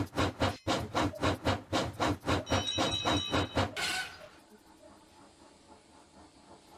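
Steam locomotive sound effect chuffing in an even rhythm of about four beats a second, with a brief high whistle-like tone near the middle. About four seconds in the chuffing stops and only a faint hiss remains.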